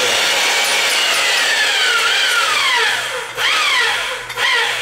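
Electric pipe threading machine turning black steel pipe while its die head cuts a thread: a loud grinding scrape with a squeal that slides steadily down in pitch, then a few short falling squeals about three and a half seconds in.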